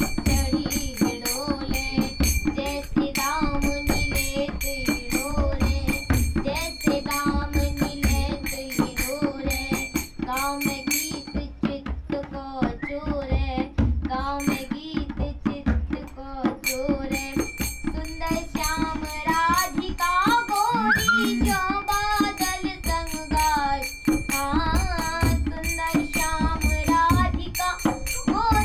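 A girl singing while beating a steady rhythm with her hands on a dholak, a two-headed barrel drum.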